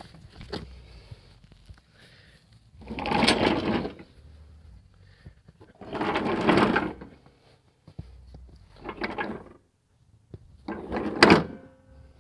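Steel mower deck of a Cub Cadet LTX1042 riding mower being dragged out from under the tractor in four pulls, each a rough scraping rattle about a second long.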